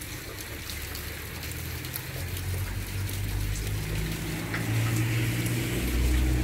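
Steady rain falling, with the low engine hum of an approaching minibus growing steadily louder from about two seconds in.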